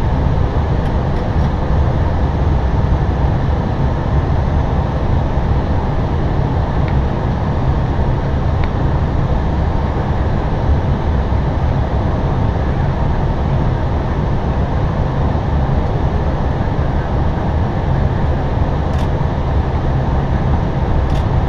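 Steady rumbling flight-deck noise of an Airbus A320 descending on approach, with a couple of faint clicks near the end.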